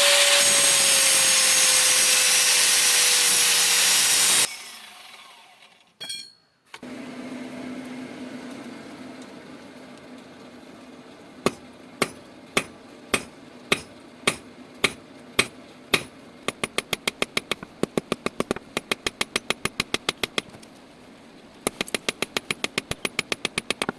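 A loud power tool runs for about four and a half seconds, its pitch sagging slightly, then stops abruptly. After a pause, sharp strikes on metal begin at a steady, slow beat and then quicken to about four a second, like a hammer shaping a metal rod.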